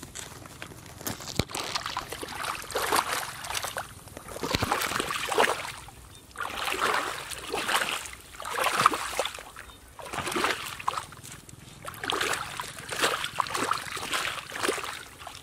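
Booted feet sloshing and splashing through shallow muddy water, stirring up the mud, in a run of uneven surges about every second or two.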